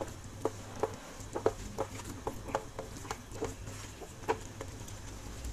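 Thick, creamy carbonara sauce with diced meatballs being stirred with a wooden spatula in a frying pan, giving short wet squelching pops, about two or three a second.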